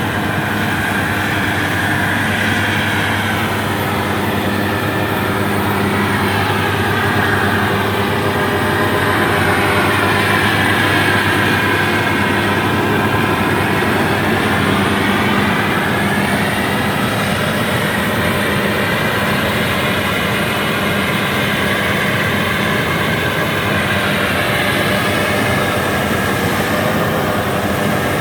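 Rice combine harvester running steadily while cutting rice, its engine and machinery making a continuous loud drone, with a whine that drifts slowly up and down in pitch.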